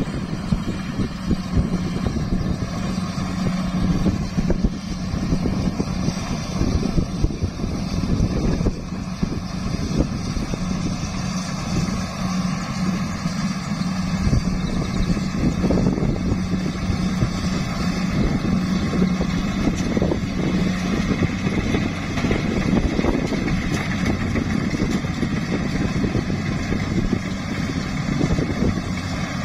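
Tracked rice combine harvester running steadily as it cuts and threshes lodged rice, its engine and threshing gear giving one constant low hum.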